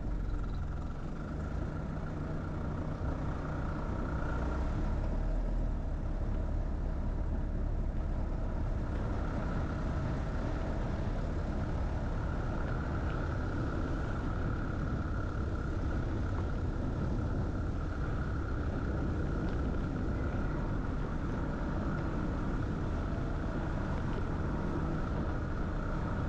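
Steady engine and road noise of a vehicle being driven slowly along a paved road, an even low rumble with no breaks.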